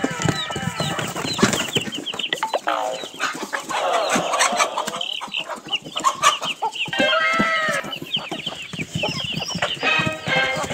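Domestic hens clucking and calling, with repeated short calls that fall in pitch and a scatter of short clicks.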